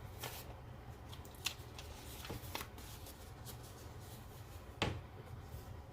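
Scattered light clicks and rustles of small parts being handled as a brushless RC motor is set into a plastic Tamiya TT-02 chassis, with a sharper knock about five seconds in.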